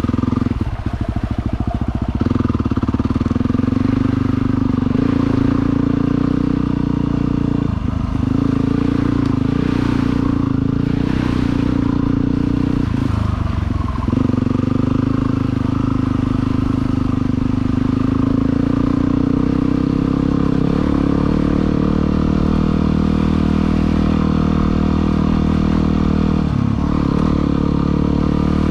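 A vehicle engine running steadily throughout, its note breaking off briefly a few times: about a second in, around eight seconds, around thirteen seconds and near the end.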